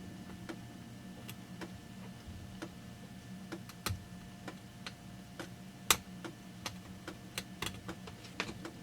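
Irregular sharp clicks and ticks of a metal seal pick, ground from a screwdriver, prying at the old leaking crankshaft seal in a Stihl MS200T chainsaw crankcase, with one louder click about six seconds in and a quicker run of clicks near the end.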